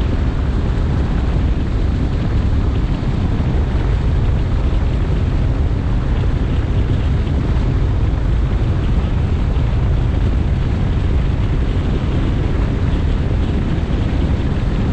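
Bass boat running at speed across open water: a steady loud rush of wind buffeting the microphone mixed with the outboard motor and the hull over the water.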